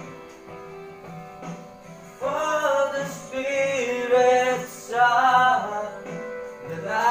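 Background music: a guitar-backed song. A singing voice comes in about two seconds in, and the music gets louder there.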